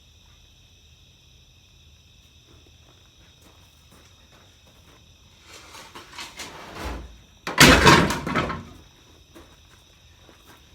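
A scraping, rustling sound and then one loud, heavy thump about three quarters of the way through, over a steady high buzz of crickets.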